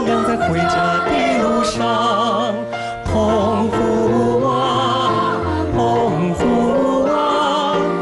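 A song: a male voice singing a sustained, wavering melody with vibrato over band accompaniment.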